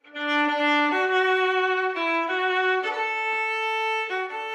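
Solo fiddle playing a slow melody of held notes.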